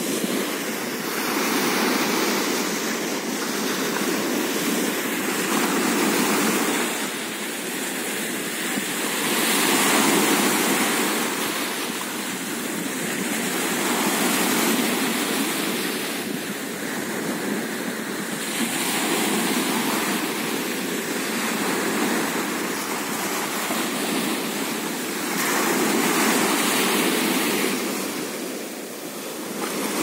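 Small sea waves breaking and washing up onto a sandy beach: a continuous rush of surf that swells and eases every four to six seconds.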